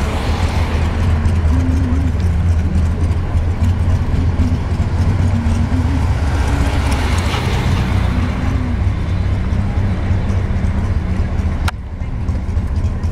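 Steady low rumble of road and engine noise heard from inside a moving car. A single sharp click sounds near the end.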